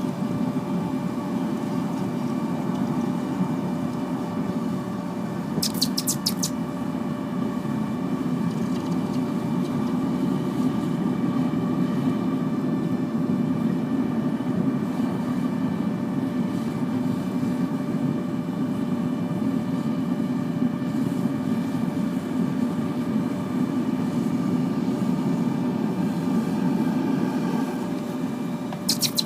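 Propane furnace with a forced-air burner running steadily: a low, even rushing noise with a steady hum over it. Brief clusters of sharp crackles about six seconds in and again near the end.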